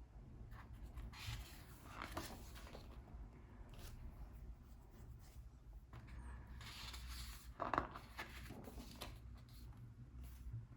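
Faint paper rustling as the pages of a book are turned and handled: several soft swishes, with a sharper, louder one late on.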